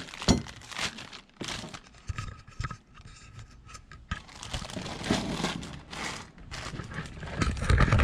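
Packaging crinkling and rustling as a new winch fairlead is unboxed and handled, with irregular crackles and a few sharp clicks and knocks.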